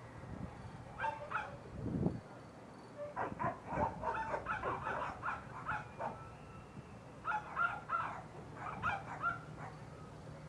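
Dogs barking and yipping in repeated short volleys, with a low thump about two seconds in.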